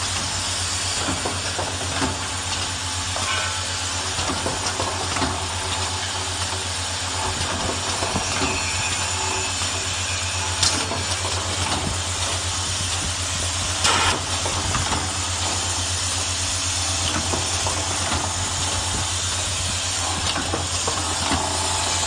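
Automatic lipstick-cap assembly machine running: a steady low hum from its vibratory bowl feeders under a constant hiss, with scattered clicks and clatter of caps and pneumatic actuators. A sharper click comes about 11 seconds in, and a brief louder burst about 14 seconds in.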